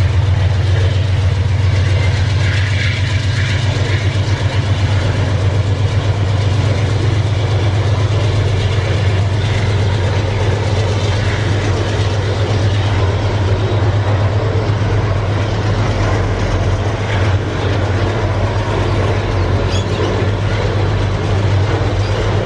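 Freight train's double-stack container well cars rolling past, a steady low rumble of steel wheels on the rails.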